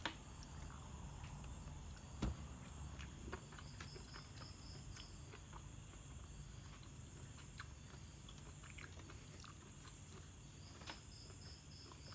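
Steady high-pitched chirring of night insects, with a few faint clicks and taps of a knife and fork against a plastic plate while a steak is cut.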